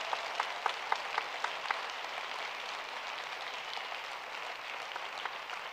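Audience applauding, a dense even clapping that eases a little toward the end.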